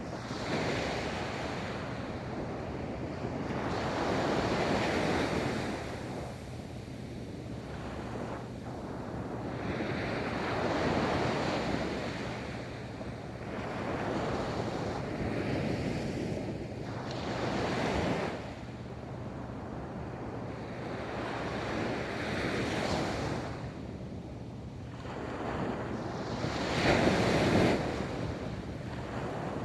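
Ocean waves rolling onto a beach, the surf swelling and falling back every few seconds, with the loudest wave breaking near the end.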